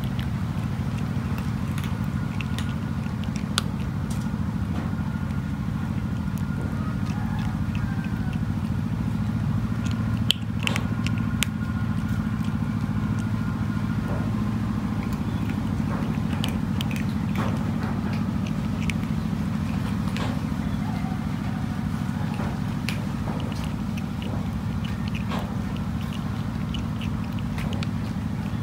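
A cat crunching dry kibble, with irregular sharp crunches throughout, over a steady low hum.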